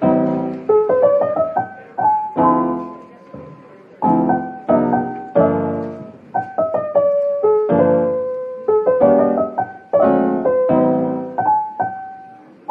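Background piano music: a gentle piece of repeated chords with single notes picked out above them, coming in suddenly at the start.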